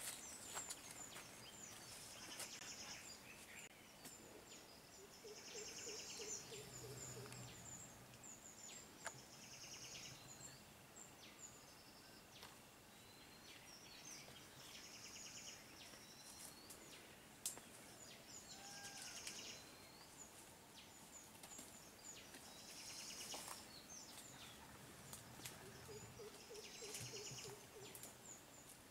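Quiet outdoor ambience with birds calling: short high-pitched trilled phrases repeat every few seconds, and twice a low run of rapid hooting notes. A couple of faint clicks stand out.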